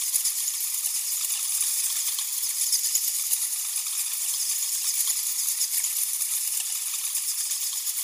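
A colony of grey-headed flying foxes chattering at their daytime roost: a steady, dense din of high-pitched squeaks and crackling clicks from many bats at once.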